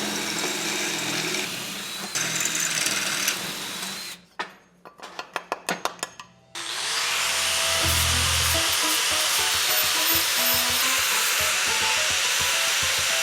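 Power drill boring through sheet steel for about four seconds, followed by a quick run of clicks. From about halfway on, background music plays over a steady hiss.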